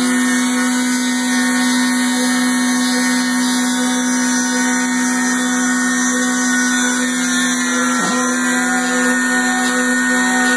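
Homemade CNC milling machine running, a steady loud whine with overtones and a brief dip in pitch about eight seconds in.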